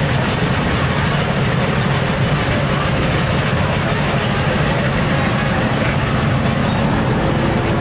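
An engine running steadily, a low hum over a dense background din that stays level throughout.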